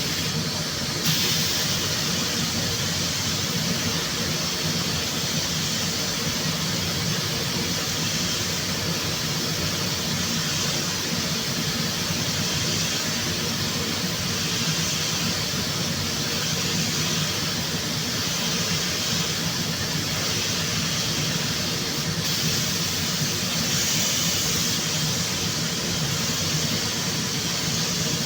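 Compressed-air tool in a body shop running steadily: a loud air hiss over a low machine hum, with the hiss stepping up about a second in and easing off briefly near the end.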